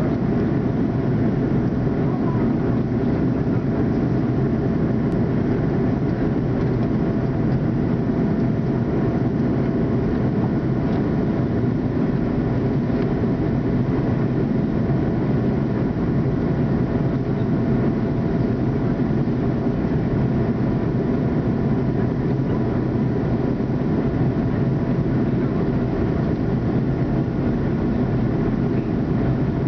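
Jet airliner in flight, heard inside the passenger cabin: a steady, even rumble of engine and airflow noise with faint constant hums above it.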